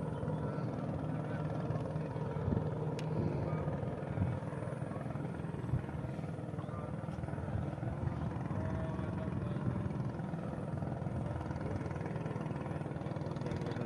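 Steady low drone of a motor, with a few faint knocks in the first half.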